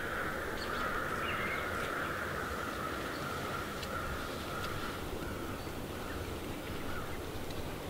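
Quiet woodland ambience: a faint, steady hiss that fades after about five seconds, with a few faint ticks.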